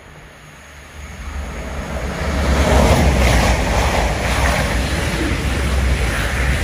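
An East Midlands Railway Class 222 Meridian diesel multiple unit passing at speed without stopping. A rushing noise builds over the first two seconds and then stays loud, over a deep steady hum.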